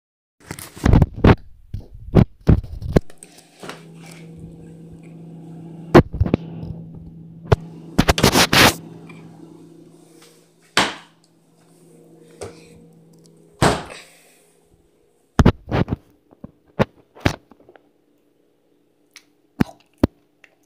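Camera being handled and knocked about: a string of sharp knocks and thumps, irregularly spaced, with a steady low hum under the middle stretch that stops about fifteen seconds in.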